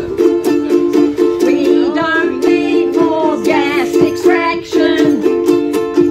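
Two ukuleles strummed in a steady, even rhythm, with a woman singing a melody over them from about a second and a half in until near the end.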